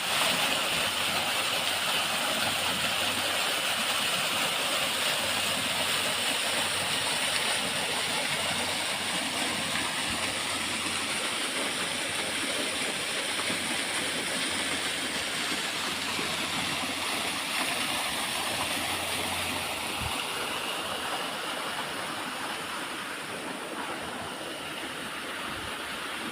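Waterfall: falling water rushing steadily, slowly getting a little quieter near the end.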